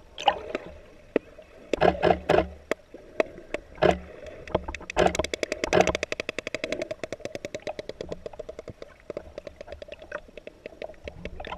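Sperm whale clicking underwater: scattered sharp clicks, then from about halfway a fast, regular train of clicks that gradually slows.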